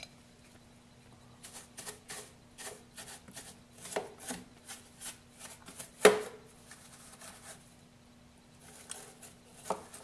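Paintbrush bristles sweeping caked coffee grounds off the plastic inside a Tchibo automatic coffee machine, in short repeated strokes about two or three a second, with one sharp knock about six seconds in.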